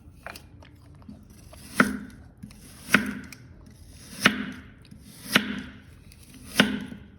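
Five sharp strikes, one about every 1.2 seconds, each like a blade or tool coming down hard on a solid surface and leaving a short ring.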